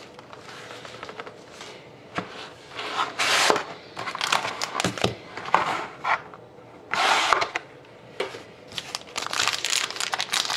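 Sealed trading card box and packs being opened by hand: scattered rustling and tearing of packaging, with a few light knocks and clicks as the box and cards are handled.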